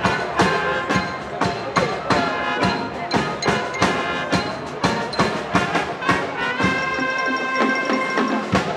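Marching band playing: brass, including sousaphone and trumpets, over a steady drum beat, ending in a long held chord near the end.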